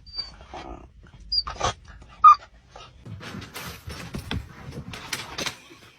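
A dog whimpering in a few short, high squeaks, the loudest about two seconds in, followed by noisy rustling in the second half.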